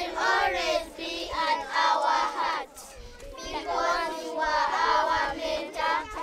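A group of children singing together, with a short break about two and a half seconds in.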